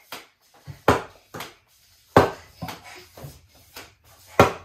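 A quick, uneven series of about eight sharp knocks and pops: foam Nerf balls being fired from toy blasters and bouncing off the floor, walls and furniture.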